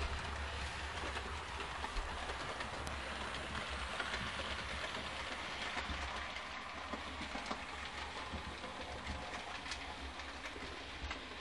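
Model train of a Roco E626 electric locomotive and coaches rolling along the layout track: a steady rolling hiss with light clicks over rail joints and a constant low hum underneath.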